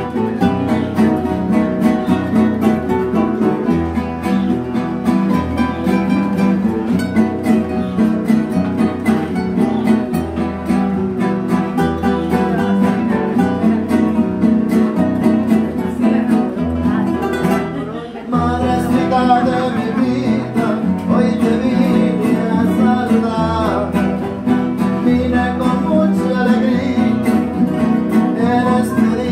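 Two acoustic guitars strumming and picking a song together. After a brief pause about two-thirds of the way in, a voice starts singing over the guitars.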